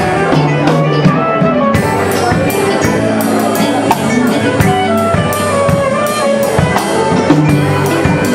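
Upbeat music with drum kit and guitar, a steady beat throughout.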